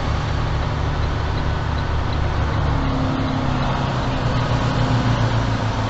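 Semi-truck diesel engine running at low speed as the truck turns slowly, heard from inside the cab as a steady low drone.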